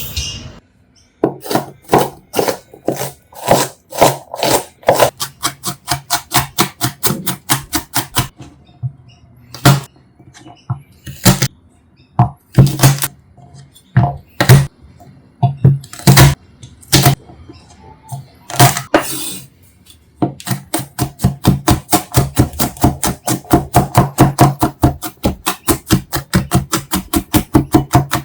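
Kitchen knife chopping food on a cutting board: a steady run of about three to four chops a second, then a stretch of scattered single chops, then a faster, denser run of chopping in the second half.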